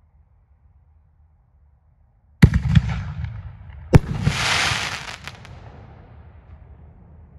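A 1.75-inch canister artillery shell (Sky Bacon Hellcat Cans) being fired: a sharp launch thump from the mortar tube about two and a half seconds in, then a second sharp bang as the shell breaks about a second and a half later. The bang is followed by about a second of hiss from the burning stars and a fading echo.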